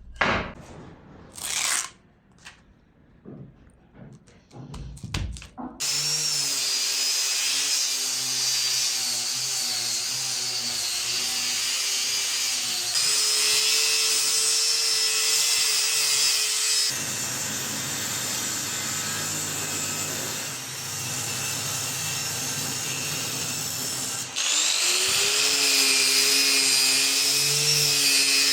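A few sharp knocks and taps, then an electric power tool running steadily on wood, its motor whine and hiss shifting in pitch and level several times.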